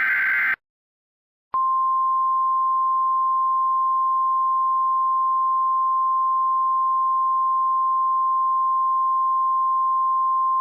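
Emergency alert broadcast tones: the end of a short, harsh burst of SAME digital header data, then, about a second and a half in, a single steady 1050 Hz NOAA Weather Radio alert tone that starts abruptly and holds unchanged.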